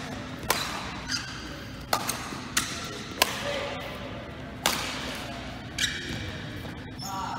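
Badminton rackets striking a shuttlecock in a rally: sharp cracks roughly every second, ringing in a large hall.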